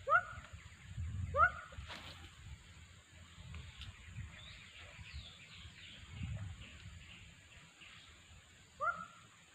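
An animal giving short, sharply rising calls three times: near the start, about a second and a half in, and near the end. Faint high chirping and a low rumble run underneath.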